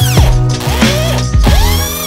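Electronic background music with a regular beat and sweeping synth pitch glides.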